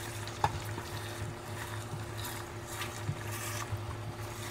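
An egg frying in butter in a thin metal frying pan, with faint crackling sizzle and a silicone spatula working under the egg against the pan; one sharp click about half a second in, over a steady low hum.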